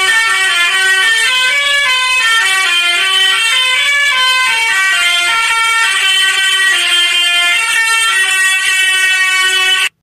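A truck's musical horn playing a tune, a quick run of notes stepping up and down without a break. It cuts off suddenly near the end.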